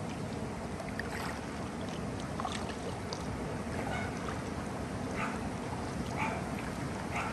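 Kayak paddle strokes dipping and splashing in river water, a short splash or drip every second or so, over a steady low rushing noise.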